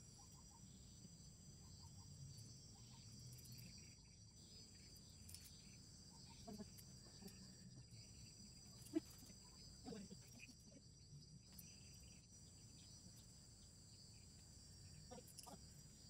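Near silence with a faint, steady, high-pitched insect drone, broken by a few faint short chirps and one brief tap about nine seconds in.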